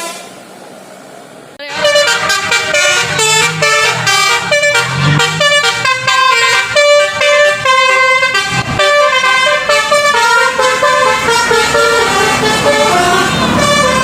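Bus basuri telolet horn, a multi-tone musical horn, playing a fast melody of quickly changing notes. It starts abruptly about two seconds in after a brief lull and keeps going.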